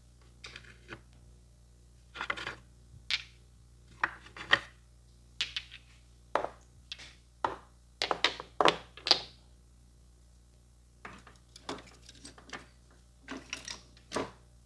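Irregular sharp taps and clicks from a barber's hands working on a customer, some single and some in quick clusters of two or three, with a pause of about a second and a half in the middle.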